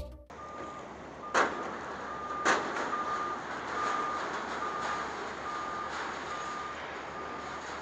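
A backup alarm beeping, a single high tone repeating about every half second, over a steady hum of yard noise. Two loud knocks come through, one about a second and a half in and another a second later.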